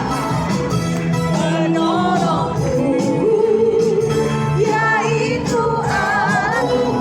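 A song playing: a singer's melody with vibrato over instrumental backing music.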